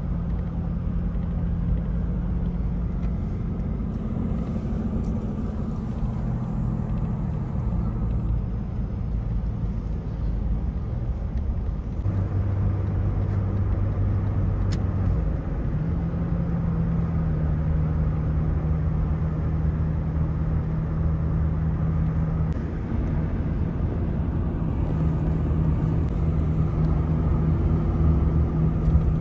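Engine and road noise heard inside a moving car's cabin: a steady low rumble, with the engine's hum changing pitch a few times.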